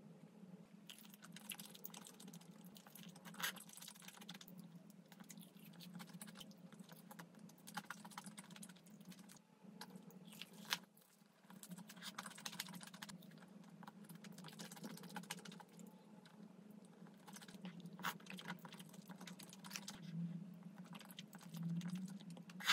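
Close-miked eating of cheese-topped tteokbokki and fried chicken: soft wet chewing with scattered small clicks and crunches, over a faint steady low hum.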